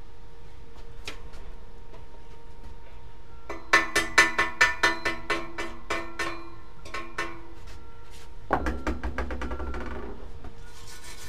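A hammer striking steel: about a dozen quick ringing metal blows, about four a second, followed by a short harsh scraping and rapid fine scrubbing strokes near the end.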